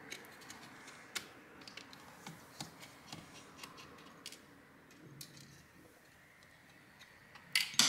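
Sparse light clicks and ticks of a Phillips screwdriver and fingers working screws on a graphics card's plastic shroud, as the card is turned in the hands. Two sharper clicks come close together near the end.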